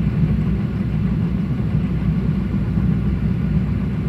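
Steady low engine rumble heard from inside a pickup's cab while a Timbco feller buncher works ahead, spraying water with its saw head.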